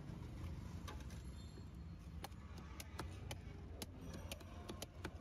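A large knife working on a big fish on a wooden chopping block: a string of sharp, irregular clicks and taps over a steady low background rumble.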